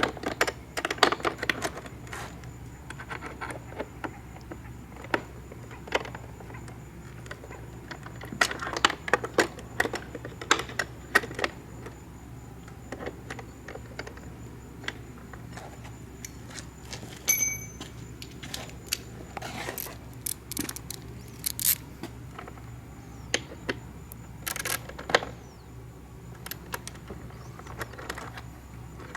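An Allen key and socket wrench tightening the screws and nuts of a small aluminium block-off plate: spells of quick metallic clicking and clinking, with pauses in between.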